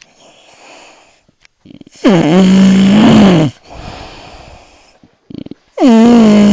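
A man snoring loudly: two long, rasping snores with a low buzzing pitch, each about a second and a half long and about four seconds apart, with a softer breathy sound between them.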